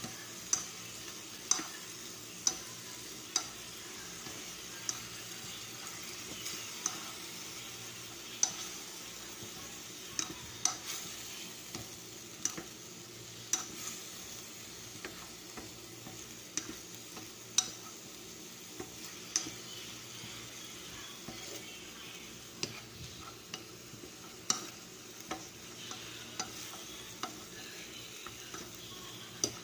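Sliced chicken sizzling in oil in a metal pan while a wooden spatula stirs it. The spatula knocks and scrapes sharply against the pan about once a second, at an uneven pace.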